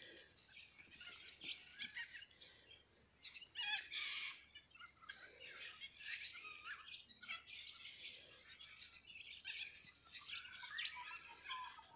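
Faint chorus of small birds chirping, many short high calls overlapping.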